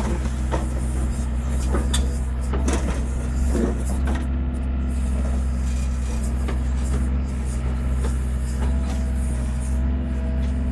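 Hyundai 55-7A mini excavator's diesel engine running steadily, with scattered knocks and clinks as it works, and a thin whine joining about halfway through.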